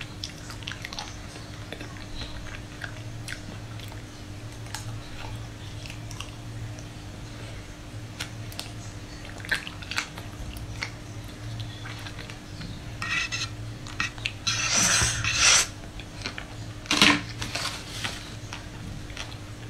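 Close-miked eating of a chocolate-coated ice cream bar: small bites and chewing with many soft clicks and crackles of the chocolate shell, over a low steady hum. Near the end come a louder burst of handling noise and then one sharp click.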